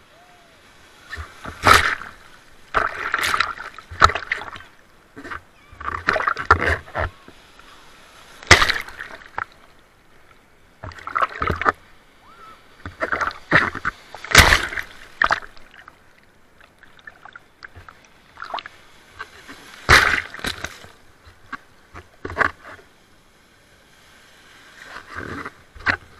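Water splashing and sloshing in short, irregular bursts every one to three seconds.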